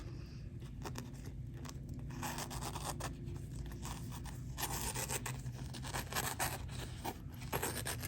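A freshly sharpened zero-grind S35VN steel tanto blade slicing through paper: a series of crisp, crackly scraping strokes that grow stronger about two seconds in.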